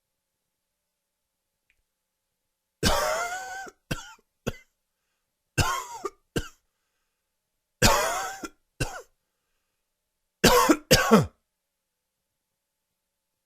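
A man's dry, wheezy coughing fit, which the uploader puts down to allergies. Four bouts of coughing start about three seconds in; each is one longer cough followed by one or two short ones.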